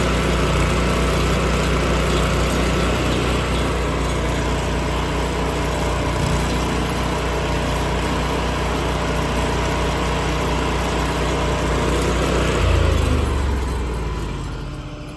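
An engine running steadily, which about 13 seconds in briefly gets louder, then winds down, falling in pitch and fading as it shuts off.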